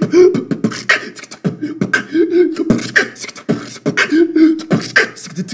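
Beatboxing: mouth-made drum clicks and snares in a steady rhythm, with a hummed bass tone that comes back about every two seconds.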